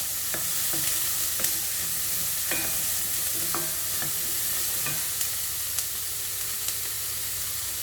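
Chopped vegetables sizzling as they sauté in melted butter in a pan: a steady frying hiss with a few light clicks.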